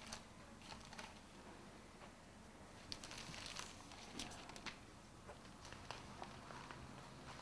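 Quiet handling of newspapers: soft paper rustling with light clicks and taps, and a longer rustle about three seconds in as a paper is pulled from a wire rack and opened.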